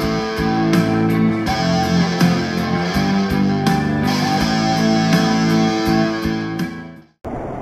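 Electric guitar playing picked notes that ring on over one another. It fades out near the end, and after a brief silence a steady rushing noise takes over.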